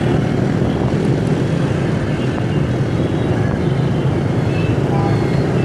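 Steady low rumble of motor traffic and a running engine, heard while riding along a busy city street.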